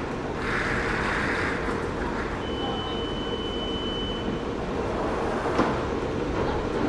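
Busy London city ambience: a steady rumble of traffic, with a thin high tone held for about two seconds midway and a sharp click a little before the end.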